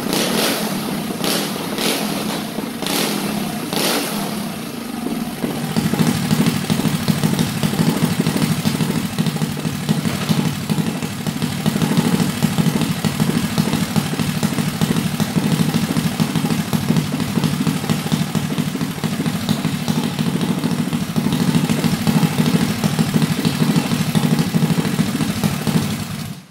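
Built Predator 212 single-cylinder four-stroke go-kart engine with a hot cam, 24 mm flat-slide carburetor and open header pipe. It is revved in quick sharp blips for about the first five seconds, then settles to a steady loud idle, and is shut off just before the end. These are break-in runs of the freshly installed cam.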